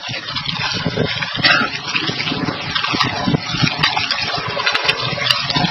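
Steady drone of a fishing boat's engine running, with a constant rushing noise over it.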